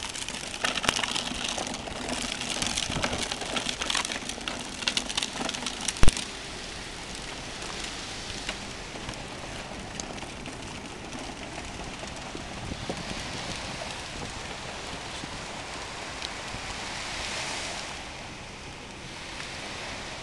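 Gritty crackling of sand and grit under small plastic toy wheels and feet on a sandy path, ending about six seconds in with a sharp click. Then a steady hiss of wind and surf.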